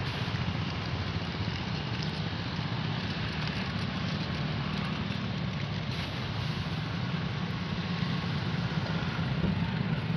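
A boat engine running steadily, a constant low drone under an even rushing noise.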